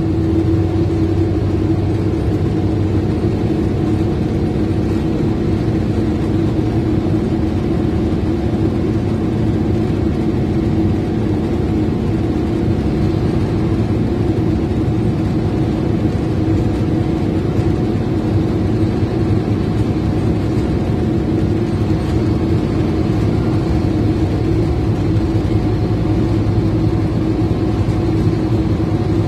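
Scania N230UD OmniCity bus heard from inside the passenger saloon while under way: its five-cylinder diesel and driveline hum steadily at an even speed, over a wash of road and tyre noise.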